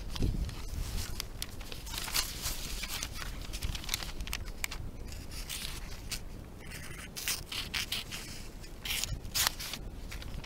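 A thin knife ground from an old saw blade drawn repeatedly through a sheet of paper, making scraping, rasping strokes as the dull edge mostly tears the paper rather than slicing it. Wind rumbles on the microphone underneath.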